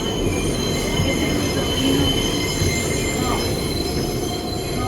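R188 subway train running through the tunnel, heard from inside the car: a steady low rumble under several steady high-pitched squealing tones from the wheels on the rails.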